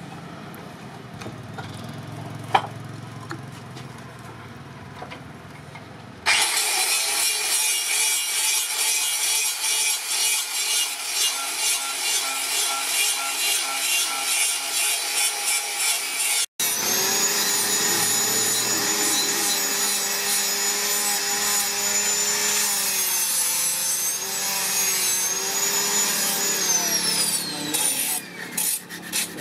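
A broad steel blade scraping a small wooden slingshot handle to shape it. It is soft for the first few seconds, then turns loud with rapid repeated strokes and a high whine running through the scrape.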